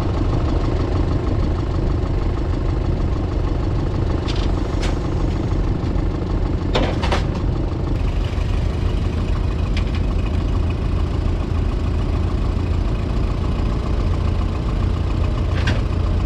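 Vehicle engine running steadily with a low drone, with a few short clicks or knocks scattered through, the loudest pair about seven seconds in.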